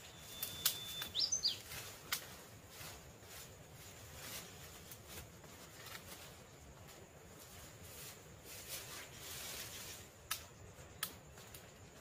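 A few sharp snaps and cracks of dead wood and twigs being handled, clustered in the first two seconds and again near the end, with a short rising bird chirp about a second in, over a steady outdoor hiss.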